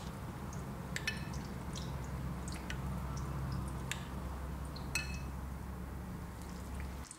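Thick wet batter squishing and dripping as gloved hands coat stuffed tofu in a glass bowl, with a few light clinks against the glass. A steady low hum runs underneath.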